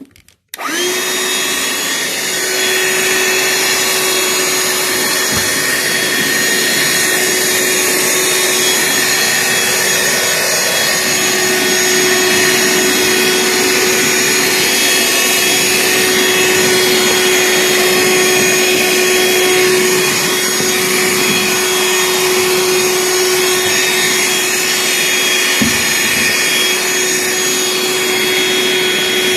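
Ryobi 18V One+ cordless handheld vacuum switched on about half a second in, then running steadily: a rush of air with a steady motor whine.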